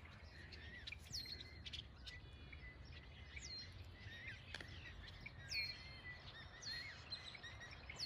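Several small songbirds chirping and calling, a quick run of high notes, many dropping sharply in pitch, over a faint low background rumble.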